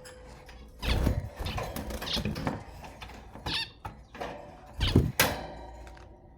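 Zebra finches giving short nasal calls, a handful in all, mixed with a couple of heavy knocks, the loudest about five seconds in.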